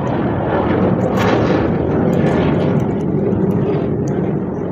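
Loud rumbling engine noise from something passing, swelling over the first second or two and easing off near the end.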